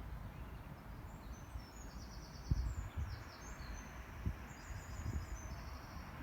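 A small songbird singing in quick, high trills over a steady low outdoor rumble, with a few soft low thumps.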